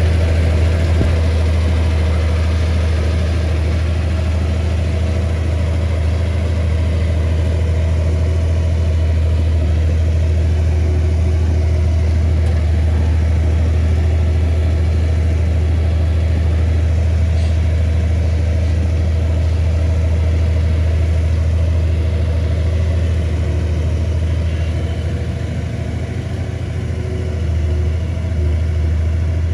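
Komatsu bulldozer's diesel engine running steadily with a deep hum, easing off a few seconds before the end and then picking up again.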